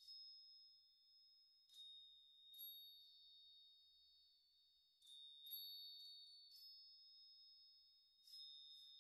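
Faint background music of sparse, high chime-like notes, about nine strikes at a few fixed pitches, each ringing on.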